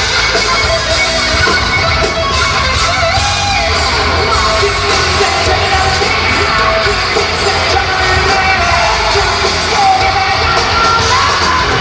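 Live heavy metal band playing, with electric guitar, bass and drums under high, yelled and sung lead vocals.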